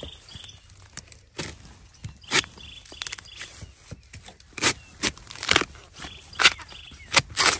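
Dry bamboo leaf litter and twigs crunching and crackling underfoot, about eight irregular sharp crackles, coming more often and louder in the second half.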